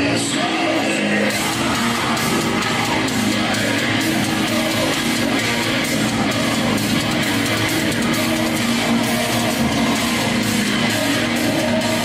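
Live hard-rock band playing loud on stage: heavy electric guitars, drums and singing, heard from within the crowd through the hall's PA.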